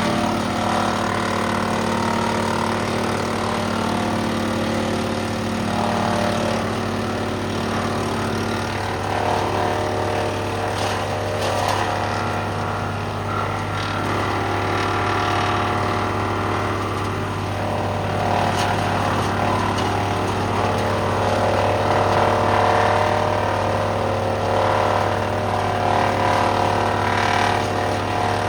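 Woodland Mills WC88 PTO wood chipper driven by a Case 485 tractor's engine, running steadily with a continuous low engine drone. A couple of brief sharp cracks come through near the middle.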